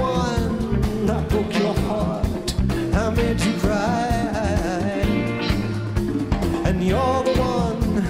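Live band music: a steady drum beat under a wavering melody line, with no sung words.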